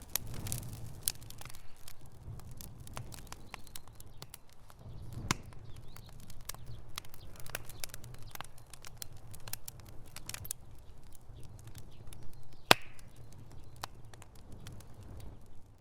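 Wood fire in a fireplace crackling, with irregular sharp pops and snaps over a low rumble of the flames; one pop stands out louder, about three-quarters of the way through.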